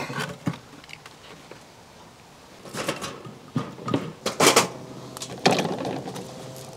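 Split wooden kindling sticks knocking and clattering as they are laid into a titanium folding wood stove: a handful of separate clunks, the loudest about four and a half seconds in.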